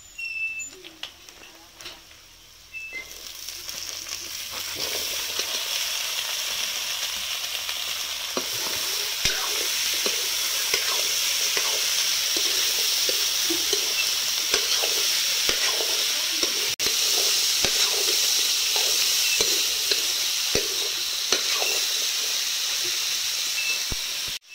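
Sliced jackfruit seeds frying in oil in a metal wok, sizzling steadily, with a metal ladle scraping and clinking against the pan as they are stirred. The sizzle is faint at first and grows louder from about three seconds in.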